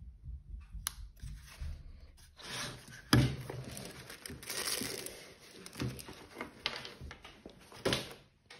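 Handling noise from unpacking: a soft fabric carry pouch, nylon straps and plastic parts rustling and crinkling as they are moved, with a few sharp plastic knocks. The loudest knock comes about three seconds in.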